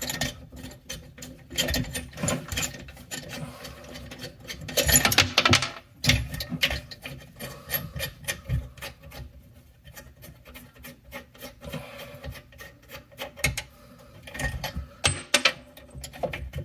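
Hand tools working loose the mounting nuts of a bathroom faucet from under the sink: irregular scraping, rubbing and clicking, with a few louder clusters of rattling along the way.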